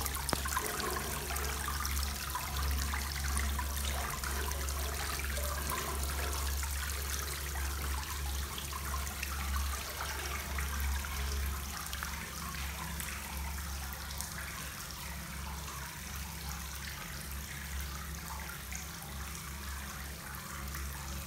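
Hot-spring water showering down through a rack of bamboo twigs and splashing into the bath pool below in many streams and drops: a steady, dense splashing, with a steady low rumble underneath.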